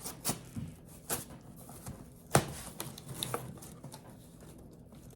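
Scattered clicks and knocks of a box and its packaging being handled and opened, the sharpest knock about two and a half seconds in.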